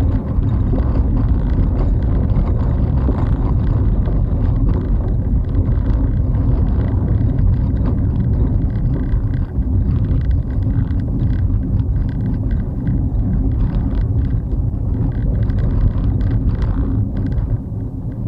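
Vehicle driving along a gravel lane, heard from the dashboard inside the cabin: a steady low rumble of engine and tyres with scattered faint clicks.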